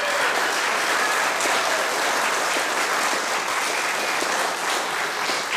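Wedding guests applauding: a steady round of clapping from the congregation greeting the couple's kiss.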